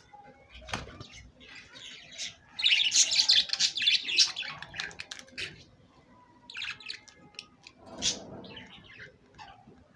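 Budgerigars chattering, with a loud burst of rapid warbling chirps about two to four seconds in, then quieter scattered chirps. A single sharp click comes just under a second in.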